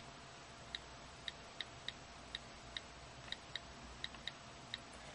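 iPod touch on-screen keyboard click sounds as a password is typed: about a dozen faint, short ticks at an uneven typing pace, a few a second.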